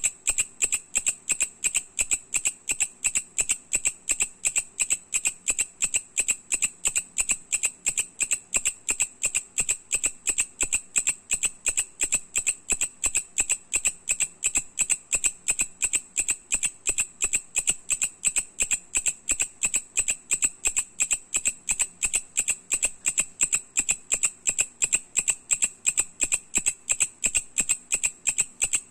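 Mecopoda katydid (bush cricket) singing: a loud, fast, even series of sharp ticks that goes on without a break.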